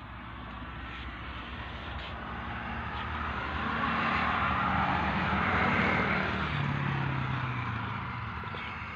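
A motor vehicle passing by: its rushing noise swells to a peak around the middle and fades, and a brief falling engine tone comes near the end, over a steady low hum.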